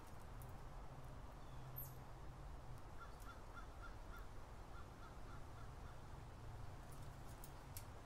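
A bird calling a quick run of about ten short, even notes, about four a second, starting around three seconds in, over a low steady rumble. A brief high falling chirp comes near two seconds and a few faint clicks near the end.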